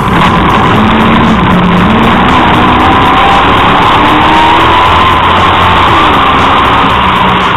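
An off-road racing vehicle's engine running hard at speed on a dirt track, heard from on board, its pitch climbing over several seconds and dropping again about six seconds in, over steady road and tyre noise.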